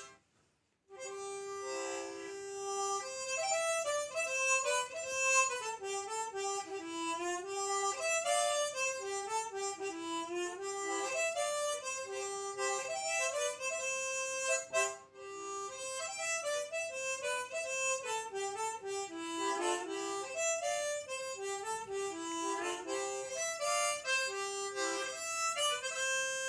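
Instrumental introduction of the song's backing track: a reedy wind-instrument melody in short stepped notes, with no singing. It starts about a second in.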